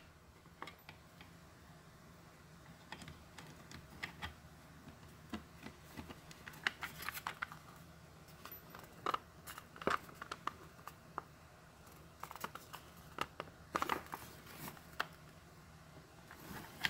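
Irregular light clicks, taps and small scrapes of hands handling a 3D-printed plastic enclosure and its circuit board, pressing the case parts together as they fail to seat properly.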